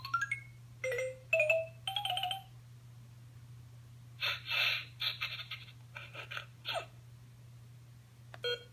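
Electronic sound effects from a LeapFrog Chat & Count toy phone: a quick rising run of beeping notes tops out, then three short beeps follow about one to two seconds in. About four seconds in comes a cluster of short, noisy jingle-like bursts, and a single beep sounds near the end.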